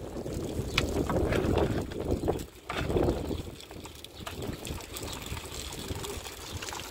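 Metal shovel scraping and scooping wet mud and stones in a few uneven strokes, with sharp clicks of gravel against the blade. The strokes are strongest in the first half and quieter later on.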